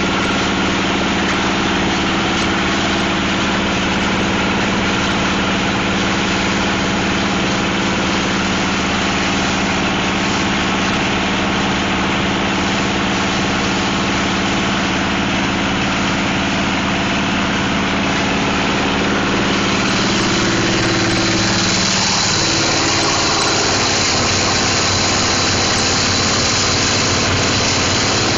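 Plastic crusher machine running with a steady mechanical hum and noise. About twenty seconds in, a hiss in the high range grows louder and the hum's pitch shifts slightly, as the machine's load changes.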